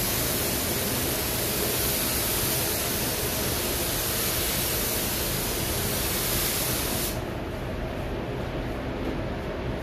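Compressed-air paint spray gun hissing steadily as it sprays a coat onto a car panel, cut off suddenly about seven seconds in when the trigger is released. A steady, duller rush of air carries on after it.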